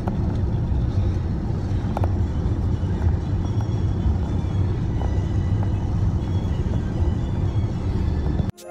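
Steady road and engine noise inside a moving car's cabin at highway speed, a low rumble with no change. Right at the end it cuts off suddenly and music begins.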